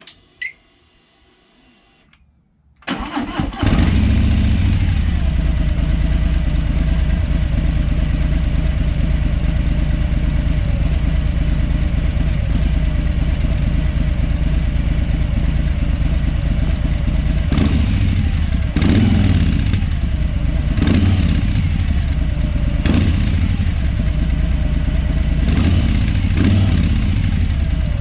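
Harley-Davidson Street Bob's Milwaukee-Eight V-twin, breathing through Miller slip-on mufflers, starting up about three seconds in and settling into a steady low idle. In the second half it is blipped several times, short revs that rise and fall back to idle.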